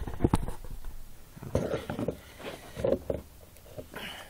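Handling noise: a few light clicks, knocks and rustles as a pellet pistol and the camera are fumbled with, with a short rustle near the end.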